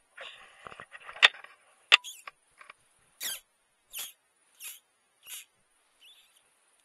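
Rustling handling noise with two sharp clicks, then four short high squeaks evenly spaced about two-thirds of a second apart.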